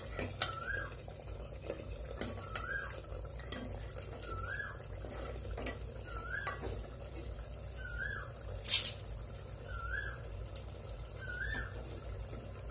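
A metal ladle stirring and scraping through mutton curry inside an aluminium pressure cooker, with light knocks against the pot and one sharper clink about nine seconds in. A short chirp repeats about every two seconds.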